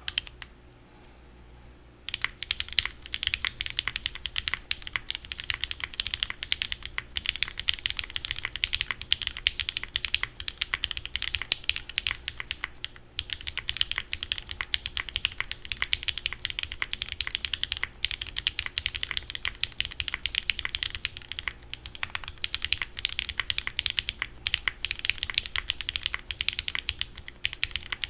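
Fast, continuous typing on a Qwertykeys Neo65 mechanical keyboard with lubed Gateron Milky Yellow linear switches in black bottom housings (KS-3X47), a carbon fiber plate and GMK keycaps, starting about two seconds in after a single keystroke. The keystrokes have a somewhat muted clack.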